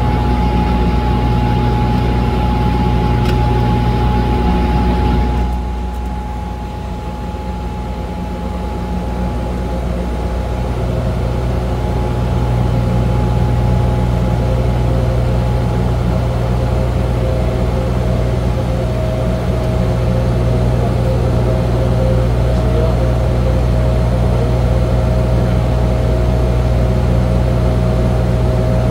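Steady drone of a de Havilland Canada Dash 8-100's twin turboprop engines and propellers, heard from the cockpit, with a steady hum and whine. About five seconds in the sound drops and thins and its pitch shifts, then it builds back to its earlier level over the next few seconds.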